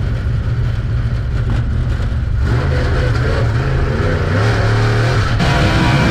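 Dirt late model race car's V8 engine heard from inside the cockpit while lapping a dirt oval. It runs steadily, then gets louder and fuller about two and a half seconds in as the driver gets back on the throttle.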